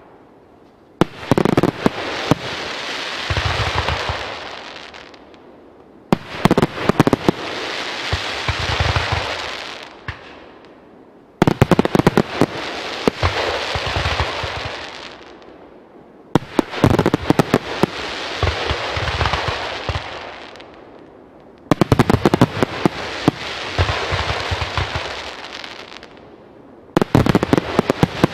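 Fireworks display going off in volleys, about every five seconds. Each volley opens with a quick cluster of sharp bangs and deep thumps, then a dense crackling hiss that fades away over a few seconds.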